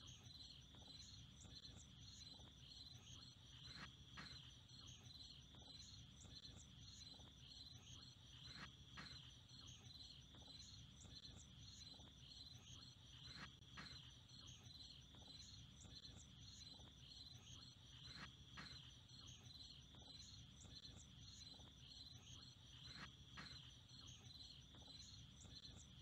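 Faint, steady chorus of crickets or other insects trilling, with a short sharper call about every four to five seconds.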